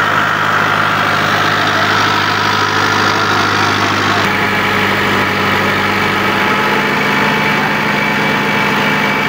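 Freshly overhauled tractor diesel engine running steadily under load during a load test; its tone shifts abruptly about four seconds in.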